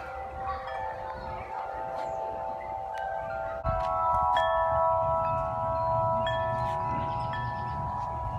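Several large tuned wind chimes ringing together, their long overlapping tones swelling with a fresh cluster of louder strikes about three and a half seconds in. A low wind rumble runs underneath.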